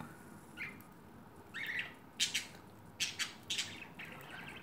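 Pet budgerigars calling: a couple of short chirps, then a few sharp, harsh squawks.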